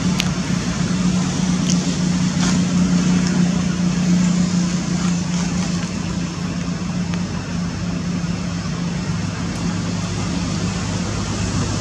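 Motor vehicle engine running steadily, a low hum with road-traffic noise that shifts to a lower hum near the end.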